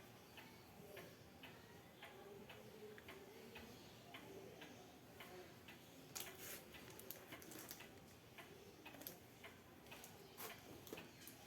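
Faint, irregular clicks and light taps of packaging being handled, with a few sharper clicks about six seconds in and again near the end.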